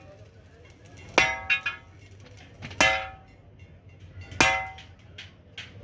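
Steel leaf spring struck with a hammer: three loud ringing metallic clangs about a second and a half apart, with a few lighter strikes between them.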